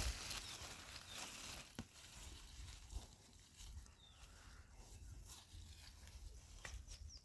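Faint outdoor ambience with a few light clicks and several short, high chirps near the end.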